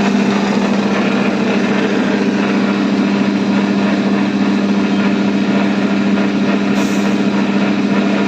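Belt-driven KFC Krusher machine running with its side cover off: a loud, steady hum under a harsh, unusual noise. The technician suspects a loose drive belt that has frayed at the sides.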